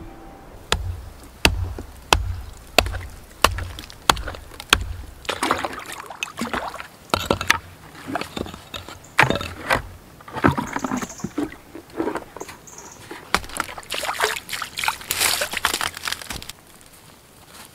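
Thin pond ice being broken with seven sharp knocks, about one every two-thirds of a second, then a bucket being dipped and sloshed through the icy water among the broken ice pieces, stopping suddenly near the end.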